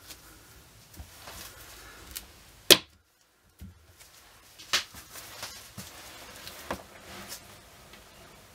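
A few sharp clicks and knocks as freshly cut soap bars are lifted and set down on a wooden wire soap cutter. The loudest knock comes a little under three seconds in, and three lighter ones follow in the second half.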